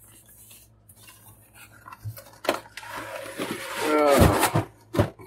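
A cardboard toy-box lid being worked off its box: light handling rustle, a click, then a scraping slide that swells with a brief squeal as the lid comes free, and a sharp clack near the end.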